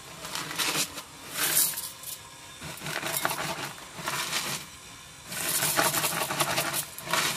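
Frosties cereal flakes pouring from a plastic cereal dispenser into a bowl, rattling in about five short bursts as the dispenser is tipped and shaken.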